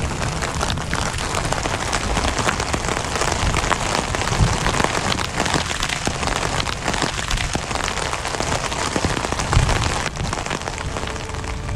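Hail and rain hitting a tent's fabric in a thunderstorm, a dense, steady patter of countless small hits.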